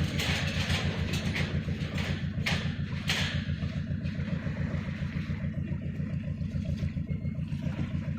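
A boat's engine running steadily, a low fast-pulsing hum, with several short sharp splashes of water in the first three seconds.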